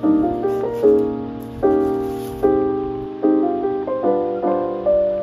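Background music: soft piano chords struck about once a second, each one fading before the next.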